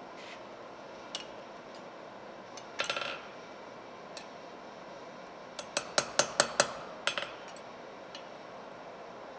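Blacksmith's hammer striking hot iron on a steel anvil: a short clatter about three seconds in, then a quick run of about six ringing blows around six seconds in and one more just after.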